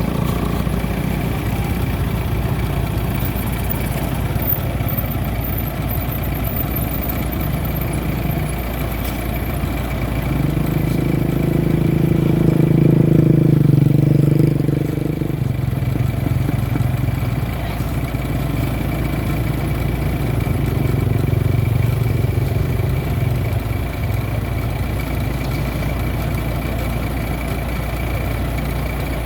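Rice combine harvester running steadily, its engine note swelling louder for a few seconds around the middle and again, more faintly, near two thirds through.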